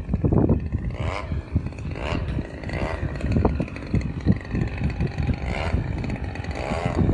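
The 30cc gas engine of a Factor radio-controlled aerobatic airplane running in flight, its pitch rising and falling several times as the plane passes and the throttle changes. Wind buffets the microphone throughout.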